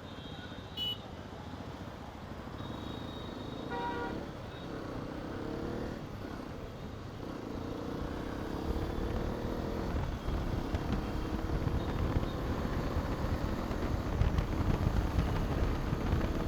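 Hero Xpulse 210's single-cylinder engine pulling away and picking up speed, its note rising from about halfway through, with wind rumbling on the microphone. A short horn toot sounds about four seconds in.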